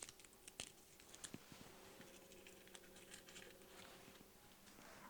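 Near silence with faint, scattered small clicks and taps from hands handling ingredients and containers at the kitchen counter, over a faint low hum.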